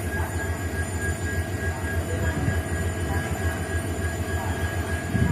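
EMD WDG4 (GT46MAC) diesel-electric locomotive engines running, a steady low hum with a few thin steady higher tones over it.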